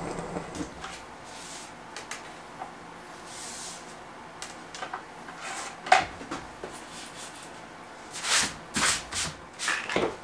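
Hands handling tools and wood: a few light clicks, a sharp knock about six seconds in, then a run of brushing, rustling sounds near the end.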